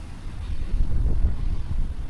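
Wind buffeting the microphone: a gusty low rumble that grows louder about half a second in.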